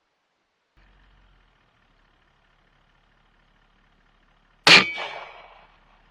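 A single rifle shot about two-thirds of the way in: one sharp, loud crack with a metallic ringing tail that dies away over about a second, with faint hiss before it.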